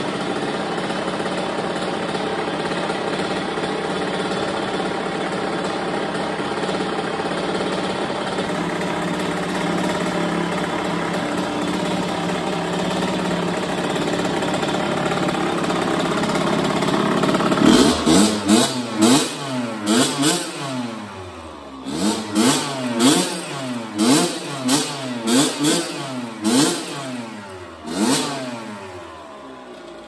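Freshly rebuilt 2005 Kawasaki KX85 two-stroke single-cylinder engine idling steadily. A little past halfway the throttle is blipped in a quick run of sharp revs, each rising and falling, before the engine drops back to idle near the end.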